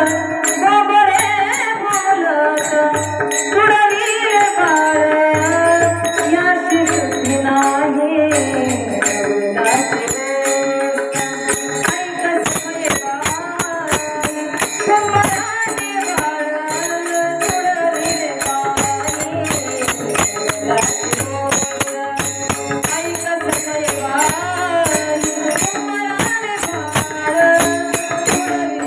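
Devotional kirtan music: a woman singing a wavering melody over fast, continuous jingling of small hand cymbals, with a drum beating steadily underneath.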